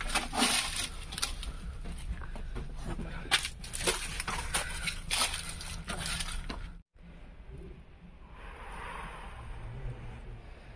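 Footsteps crunching and scraping through dry leaf litter and loose rubble, a quick run of crackles, until a sudden cut about seven seconds in leaves only a faint hiss.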